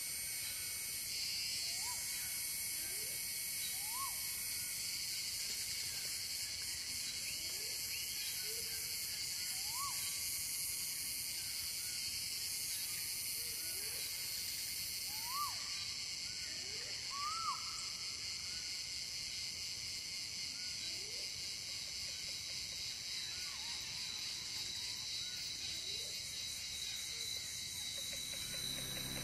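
Forest insect chorus: a dense, steady, high-pitched drone. Short rising calls from an unseen animal come every second or two over it.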